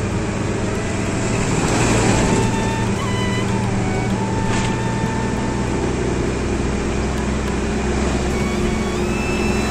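Bus running along a road, heard from beside an open window: a steady engine drone under road and wind rush, which swells about two seconds in as an oncoming bus passes.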